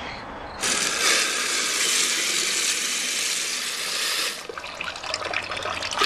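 Homemade custom toilet flushing: a rush of water starts just under a second in, runs steadily for about four seconds, then drops away to a quieter swirl. The flush fails to clear the five sheets of toilet paper and the toilet clogs.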